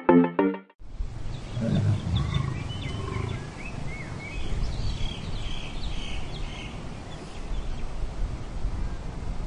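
Wild-animal ambience: scattered high bird chirps over a steady low rumble, with a louder low sound about two seconds in. It follows the last notes of a short electronic music intro, which stops within the first second.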